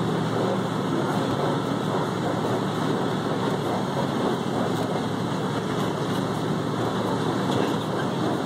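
Open-sided safari truck driving along a dirt track: a steady rumble of engine and tyres.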